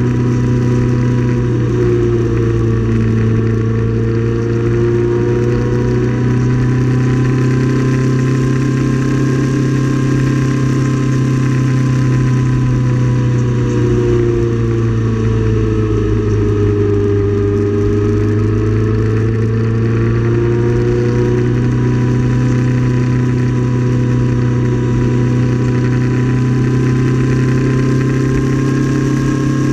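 Motorcycle engine running steadily while cruising in sixth gear. Its note dips slightly and comes back up about halfway through, around the time it passes through a road tunnel.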